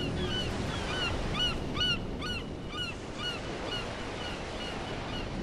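Seagulls calling in short, repeated cries, about two or three a second, over the steady wash of the sea.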